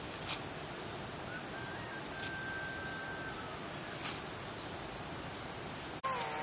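Steady high-pitched chorus of insects, with a faint thin whistle about one and a half to three seconds in. It gets abruptly louder near the end.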